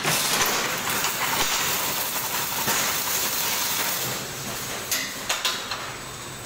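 Automatic chain-link fence weaving machine running: a continuous metallic clatter and hiss, with a few sharp clicks about five seconds in.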